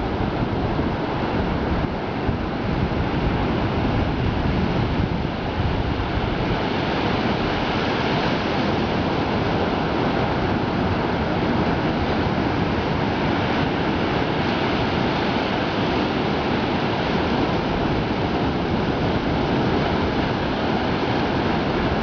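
Sea waves breaking along the shore: a steady, continuous wash of surf with no single crash standing out.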